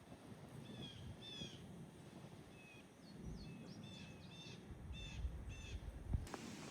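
A bird calling repeatedly in the woods: short, slightly falling calls, some in quick pairs, about every half second to second, over a faint low background rumble.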